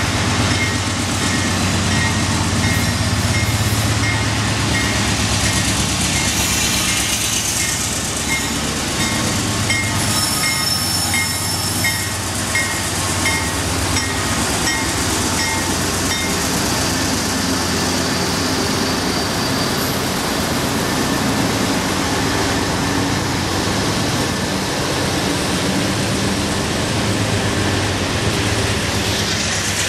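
Canadian Pacific GE diesel locomotives working hard at low speed as they approach and pass, engines running loud and steady under load. They are straining to get a 53-car train moving, which the uploader says brought on wheel slip. A bell rings steadily about every two-thirds of a second through the first half.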